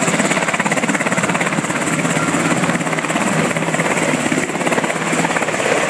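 Sikorsky MH-60 Jayhawk helicopter lifting off, its twin turboshaft engines and rotors running at high power with a rapid, even rotor beat.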